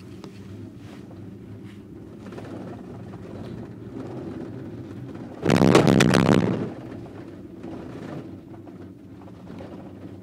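Steady low hum inside a 4-seat POMA gondola cabin moving along the haul rope, with Omega cabins fitted. About five and a half seconds in comes a loud rattling rumble lasting about a second as the cabin's grip runs over the sheave rollers of a support tower.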